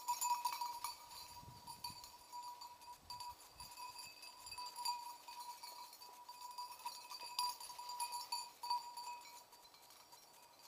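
A hunting dog's collar bell ringing continuously and unevenly as the dog moves through the undergrowth.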